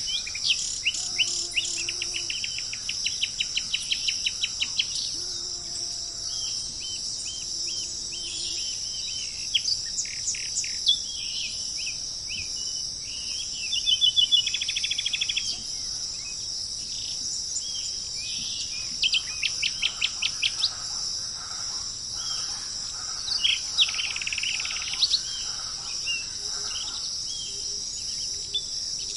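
Several songbirds singing in repeated phrases and quick trills over a steady, high-pitched insect drone.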